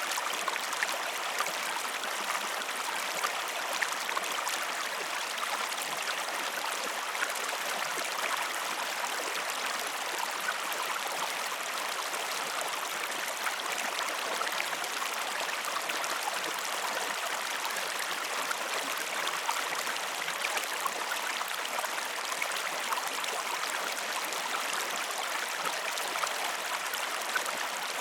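Steady rush of a flowing river, with many small splashes and trickles.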